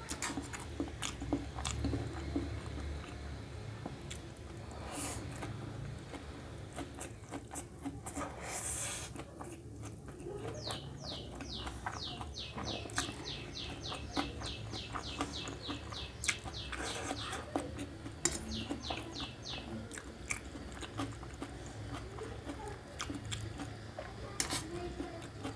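Close-up chewing and slurping of stir-fried vegetable chow mein noodles, with sharp clicks of a fork against a steel plate. Midway, a fast run of high chirps sounds in the background for several seconds.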